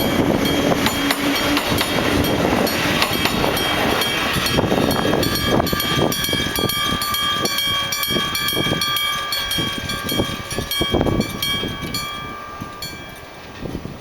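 A train passes over a level crossing with its wheels clattering, while the crossing's electric-gong warning bell rings steadily. The sound fades in the last few seconds.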